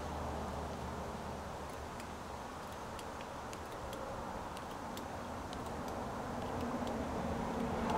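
Faint, irregular light ticks, a few a second, over a low steady hum.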